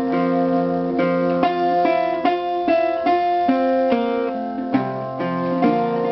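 Resonator guitar (Dobro) played alone in an instrumental break of a slow blues-folk song: a run of plucked notes ringing over one another.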